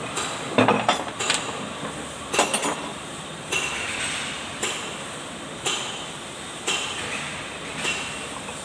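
Metal-on-metal knocks and clanks on a rotovator: a quick cluster of knocks at first, then single clanks about once a second, each with a short metallic ring.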